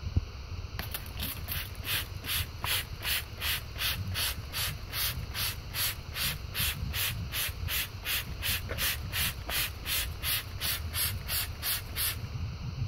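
Hand trigger spray bottle pumped over and over, a short hiss of spray about three times a second for some eleven seconds, after one sharp click at the start.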